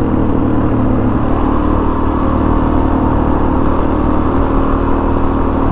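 Dual sport motorcycle engine running at a fairly steady speed while riding a trail, with no clear rise or fall in pitch.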